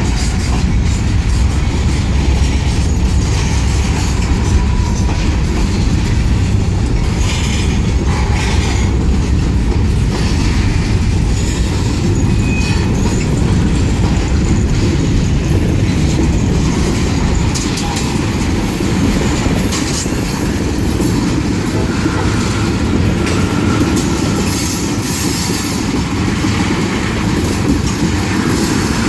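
Loaded freight cars, covered hoppers then tank cars, rolling past close by: a steady rumble of steel wheels on the rails with scattered clanks. A faint thin wheel squeal comes in now and then, mostly in the later part.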